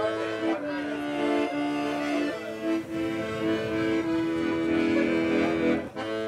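Accordion music playing a slow melody of long held notes, with a short break near the end.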